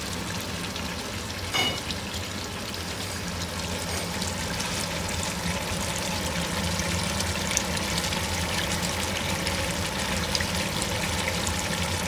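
Veal sizzling steadily as it browns in a pot over high heat, over a low steady hum. A utensil clinks against the pot once, about a second and a half in.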